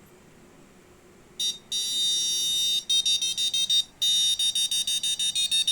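Electronic buzzer of an Arduino RFID and keypad lock sounding as a card is scanned and stored in memory: a short blip about a second and a half in, a long steady high beep, a run of rapid beeps at about nine a second, then another long beep and another rapid run near the end.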